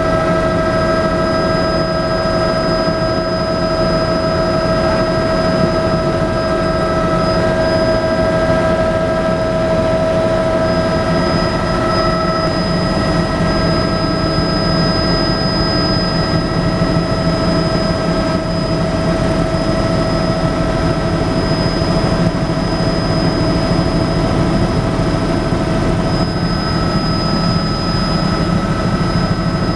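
Bell 206B-3 JetRanger III helicopter in flight, heard from inside the cabin: the Allison 250 turboshaft's steady high whine over the dense, even noise of the rotor and transmission.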